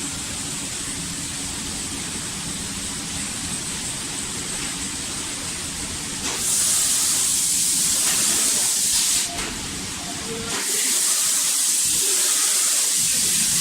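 Automatic spraying machine's paint spray gun hissing with compressed air, over steady machine noise. The spray hiss starts about six seconds in, cuts out briefly about nine seconds in, then resumes.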